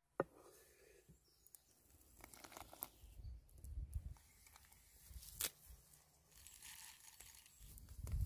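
Close-up food-prep handling sounds: scattered clicks and scrapes, soft knocks as garlic cloves drop into a stone mortar about halfway through, then a stone pestle thudding and crushing garlic near the end.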